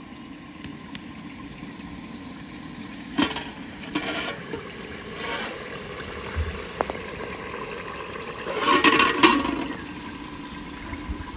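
Cooking over a wood fire: a steady rushing hiss with a few sharp pops. About nine seconds in comes a louder metallic clatter with a short ring, a steel pot lid and ladle knocking together.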